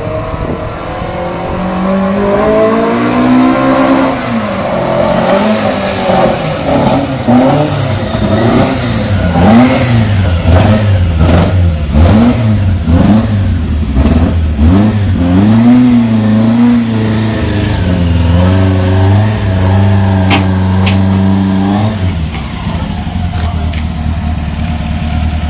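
Silver Saab 96 rally car's engine being revved repeatedly, the pitch rising and falling in a series of blips, then held steady at higher revs for a few seconds before dropping back to a low idle near the end.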